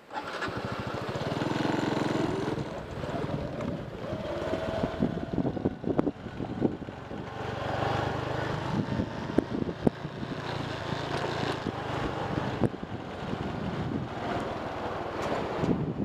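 Motorcycle engine running as the bike rides along, its note rising and falling with the throttle. The sound starts suddenly.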